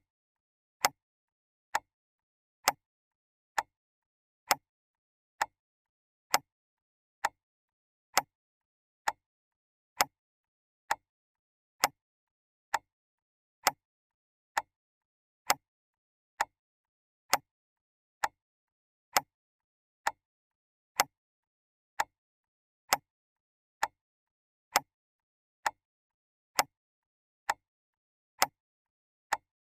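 Clock ticking steadily, a little faster than one tick a second, each tick a crisp click with dead silence in between and alternate ticks slightly softer, like a tick-tock.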